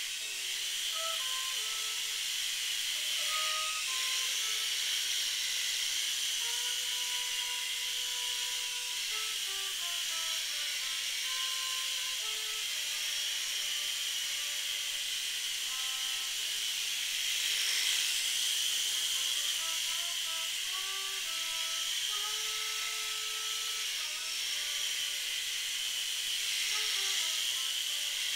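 Steady high whirring hiss of a small coaxial RC helicopter's rotors and motors, over slow, soft music playing from a TV.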